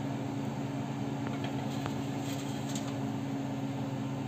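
A steady low mechanical hum, under a faint even sizzle of yeast donuts frying in a pot of oil, with a few light clicks around the middle.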